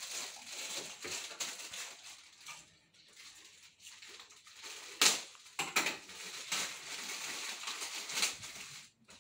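Handling noise from small plastic electrical parts and wire: crinkling and crackling with a few sharp snaps, the loudest about five seconds in.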